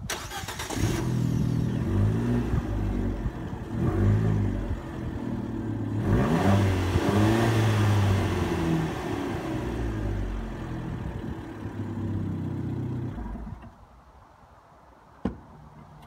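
Fiat 595 Abarth's turbocharged 1.4-litre four-cylinder engine starting, then idling with several short blips of the throttle, each a quick rise and fall in pitch. It is switched off about three-quarters of the way through, and a single sharp click, the door being opened, follows near the end.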